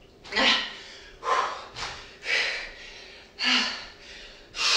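A woman's hard exercise breathing: five quick, forceful breaths about a second apart, one with each dumbbell swing.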